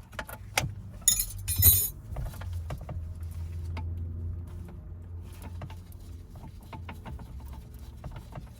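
Small metal tools and hardware clinking and clattering by hand, with a dense rattle of metal on metal about a second in, over a low steady hum.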